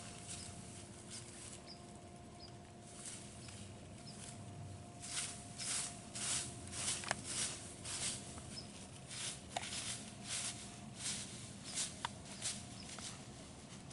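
An animal walking through dry leaves: irregular crunching steps, roughly two a second, that start about five seconds in and grow louder.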